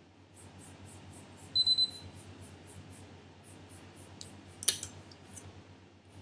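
Gel-nail LED curing lamp giving a short run of quick high beeps as its 10-second curing timer ends, followed about three seconds later by a sharp click.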